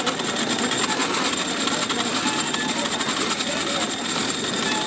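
Cotton candy machine running, its motor and spinning head making a steady whir while floss is spun out into the bowl.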